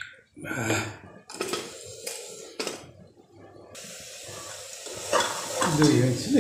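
Metal clinks and knocks from a pressure cooker's weight and lid being handled. About four seconds in, a steady hiss of escaping steam starts from the opened vent, with louder metal scraping near the end.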